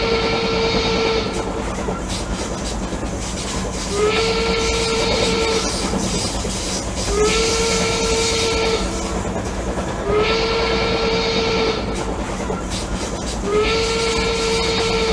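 A whistle-like tone that scoops up in pitch and then holds for about a second and a half, sounding five times about every three seconds, each time with a burst of hiss, over a steady rumble.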